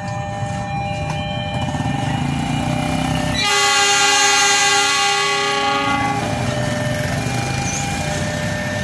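A train horn sounding one long blast of about two and a half seconds, starting suddenly a few seconds in and fading out, over the steady rumble of a running train.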